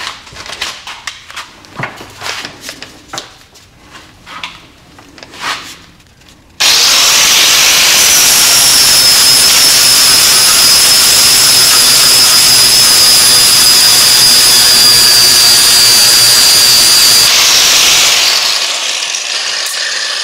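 A few seconds of light clicks and knocks, then an angle grinder switches on abruptly and grinds down the steel rivet heads that hold a stock BMW K75 brake rotor to its hat. The high whine sags slightly under load for about ten seconds, then winds down near the end.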